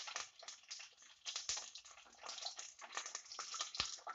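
Mustard seeds sputtering in hot coconut oil in a steel pot: faint, irregular small pops and ticks, the start of a mustard-seed tempering. Two deeper knocks come about one and a half seconds in and near the end.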